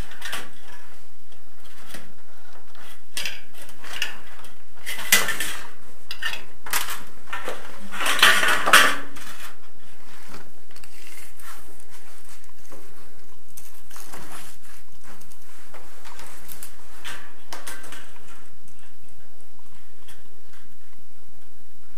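Light metallic clinks, taps and scrapes of a thin metal profile and hand tools being handled and measured, with louder scraping rasps about five and eight seconds in.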